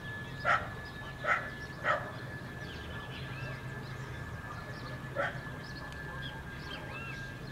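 A dog barking in the distance: three barks in the first two seconds and one more about five seconds in, with birds chirping and a steady high tone in the background.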